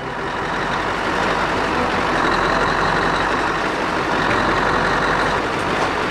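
Scania R500's V8 diesel engine running steadily with the truck standing still, the sound swelling a little over the first second or two and then holding.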